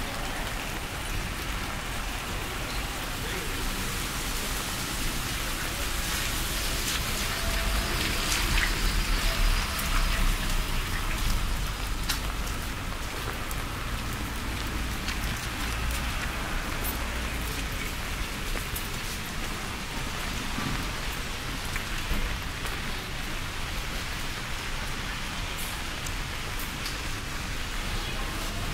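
Steady rain falling, with scattered sharp drips. A louder low rumble swells from about six to twelve seconds in.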